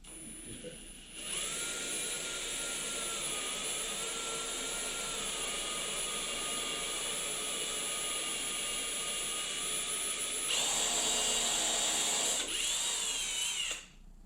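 Electric drill boring a hole through a wooden bench slat, running steadily under downward pressure. About ten seconds in, the motor whine grows louder and higher, then wavers and stops just before the end.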